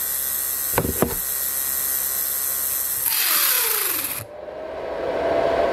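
Small DC motor running at 12 V from a bench power supply, with two clicks about a second in. About three seconds in, its whine falls steeply in pitch as it is gripped and slowed almost to a stall, drawing about 0.8 A. A loud scraping of the tool against the spinning motor follows.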